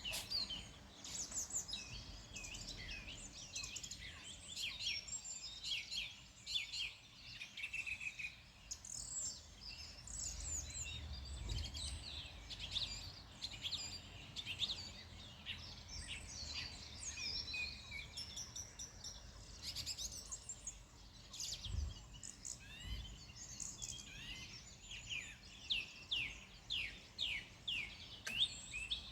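A chorus of several small songbirds chirping and singing over one another in quick, high, overlapping notes, with a low rumble now and then.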